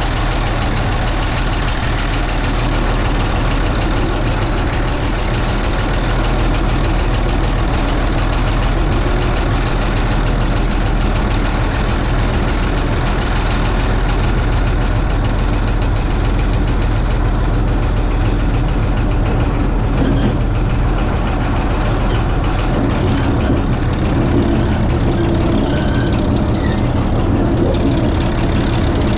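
1949 International TD24 crawler dozer's naturally aspirated 1091-cubic-inch UD1091 diesel engine running steadily; about 23 seconds in the deepest part of the engine rumble drops away as the engine note changes.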